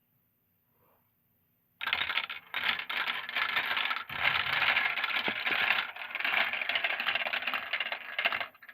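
Marbles rolling and clattering down a marble run, starting suddenly about two seconds in and going on as a dense rattle with a few brief breaks.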